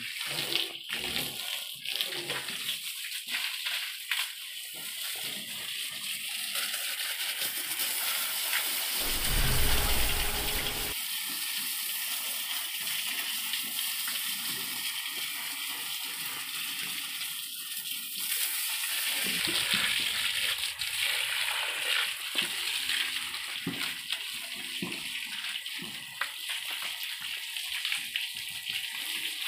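Water from a garden hose spraying and splattering onto the mud-caked tracks, undercarriage and boom of an XCMG XE80C mini excavator, a steady hiss of spray. About nine seconds in, a louder low rumble lasts for about two seconds.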